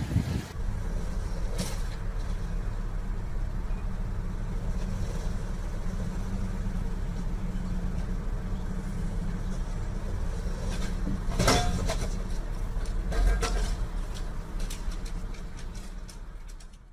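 Steady low rumble of a motor vehicle running, with a few brief knocks or clicks about two thirds of the way through, fading out at the end.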